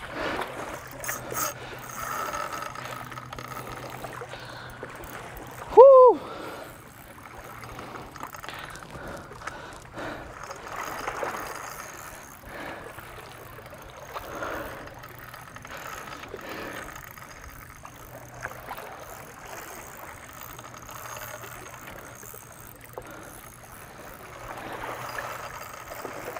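Small waves lapping and gurgling against a rocky shoreline, with wind on the microphone. About six seconds in comes one brief, loud, high-pitched cry that rises and falls.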